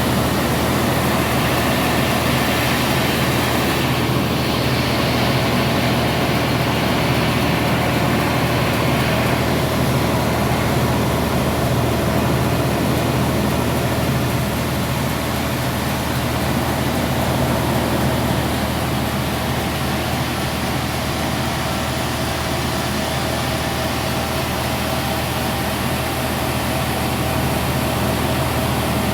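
Sawmill machinery running steadily with a low engine drone. A higher hiss over it changes about four seconds in and dies away near ten seconds.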